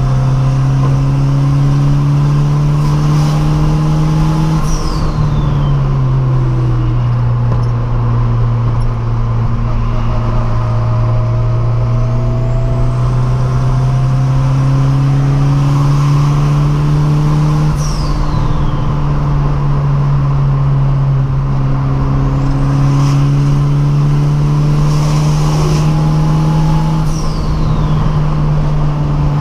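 Cabin sound of a turbocharged 1996 VW Gol at a steady highway cruise: the engine and drivetrain drone loud and even, the pitch drifting slowly up and down. A brief falling whistle comes three times.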